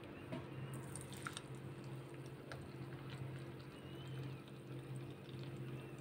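Faint pouring and dripping of blended pomegranate juice from a steel pot through a fine mesh strainer into a glass bowl, with a few light ticks, over a steady low hum.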